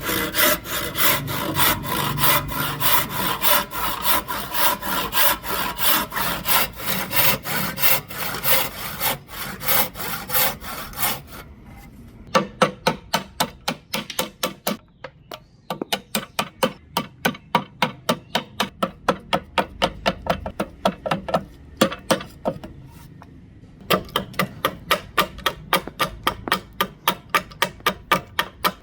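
Hand tool working wood in rapid back-and-forth strokes, rubbing and rasping at about four strokes a second. A little under halfway through, the sound changes to sharper, separate strokes at about three a second, broken by two short pauses.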